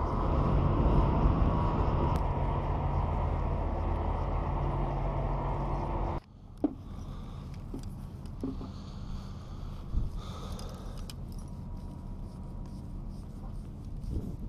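Harbour machinery running with a steady low engine drone and a few held tones. It cuts off abruptly about six seconds in, leaving a quieter open-air background with a few light clicks and taps from a spinning rod and reel being handled.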